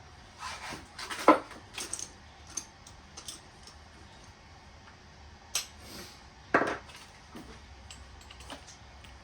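Hand wrenches clinking and clanking against each other and other metal as they are handled and sorted, in a few scattered sharp knocks, the loudest about a second in.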